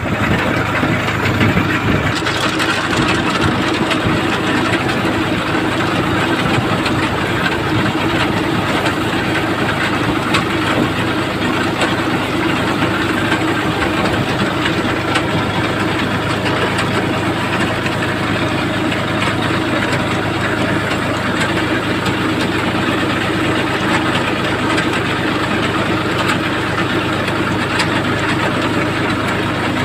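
A 40 hp tractor's diesel engine running steadily under a constant load. Its even drone barely changes, with a slight rise in its higher, harsher part about two seconds in.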